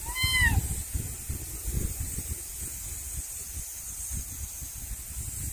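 A kitten gives one short, high mew that rises and falls, right at the start. After it comes only low rustling noise.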